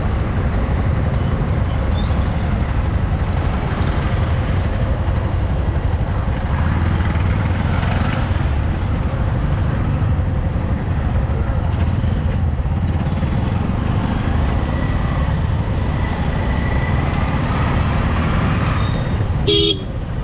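Motorcycle engine running with wind noise on the rider's mic in slow traffic: a steady low rumble. A brief beep sounds near the end.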